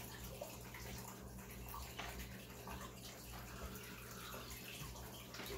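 Faint steady trickle of water with a low hum underneath, from an aquarium filter running.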